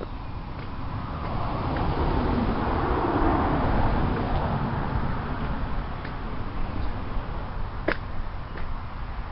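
A vehicle passing, its sound swelling over the first few seconds and fading again, over wind buffeting the microphone. A single sharp click near the end.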